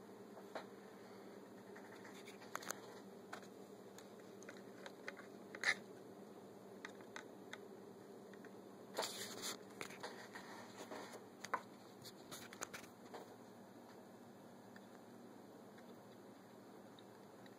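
Fingers handling a small plastic scale-model truck and trailer: scattered light clicks and taps, a cluster of them around nine seconds, fewer from about thirteen seconds on, over a faint steady hum.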